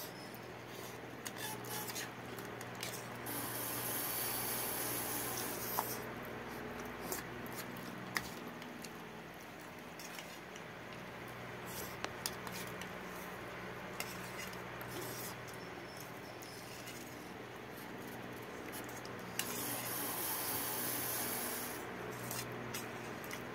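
Steel spoons scraping and clinking against steel plates as two people eat instant noodles, heard as scattered sharp clicks over a steady low hum. Two stretches of hissing noise a few seconds long stand out, one near the start and one near the end.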